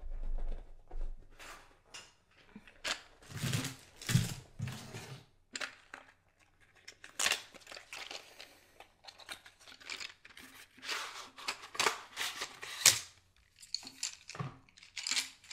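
Colour sticks and coloured pencils being gathered and handled, with irregular clicking, clattering and rustling throughout.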